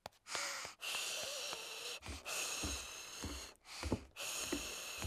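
A child blowing air through pursed lips in a failed attempt to whistle: several breathy blows with short gaps and no whistle tone. Soft thumps of footsteps on stairs come under the blows from about two seconds in.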